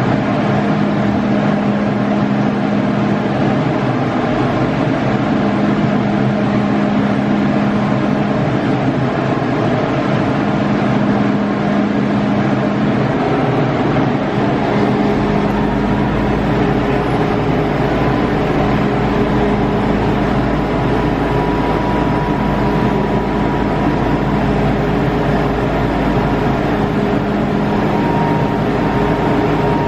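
MTR Tsuen Wan Line M-Train running: steady rail and running noise with constant electrical humming tones, a deeper rumble joining about halfway through.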